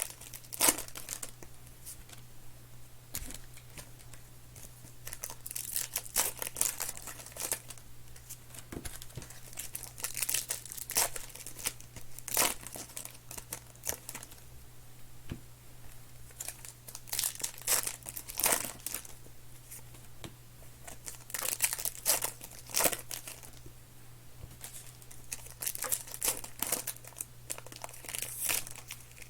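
Plastic wrappers of football-card packs being torn open and crinkled, in irregular bursts every second or two, over a steady low electrical hum.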